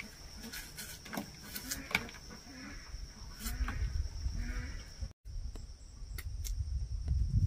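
A farm animal calling in short pitched cries about once a second, over a steady high drone of insects. The sound cuts out for a moment about five seconds in, and a low rumble builds near the end.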